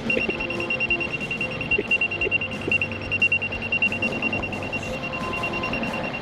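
An electronic warning alarm on a Kubota track loader, beeping rapidly at one high pitch and stopping near the end, over the machine's engine running steadily, with a few clunks.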